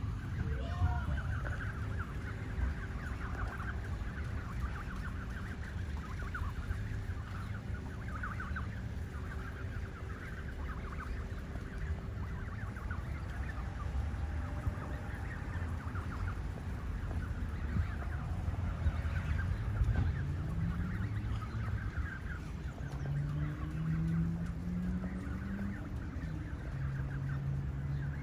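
Canada geese and their goslings calling: a near-constant stream of short, rapid calls over a low steady rumble.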